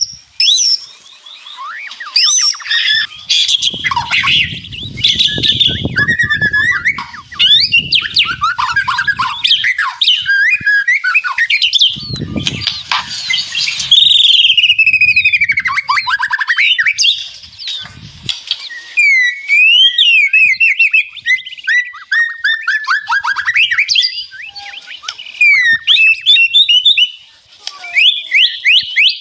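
White-rumped shama singing a loud, varied song of fast sweeping whistles and rattling phrases, with quick runs of repeated notes near the end. A low rumbling noise sits under the song twice.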